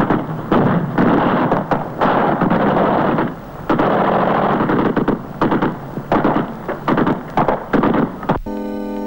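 Gunfire and explosions on a film soundtrack: a rapid, irregular run of loud bangs and noisy blasts that cuts off sharply near the end.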